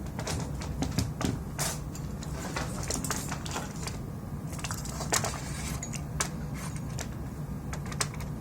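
Small hard parts being handled by hand: irregular clicks and taps at uneven intervals, over a steady low hum.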